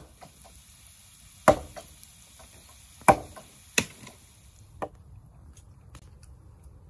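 Outdoor wood cooking fire with potatoes roasting in a cast-iron pan over the embers: a faint steady hiss with four sharp knocks or pops in just over three seconds. The hiss stops at the last knock.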